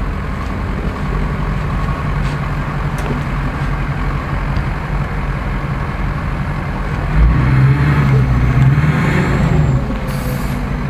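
Ford F-250 pickup's engine running under load as the truck pushes through deep mud; about seven seconds in the engine is revved harder, rising in pitch and getting louder for a couple of seconds before it eases off.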